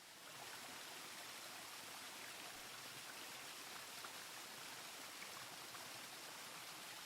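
A river flowing steadily, heard as a faint, even rush of water.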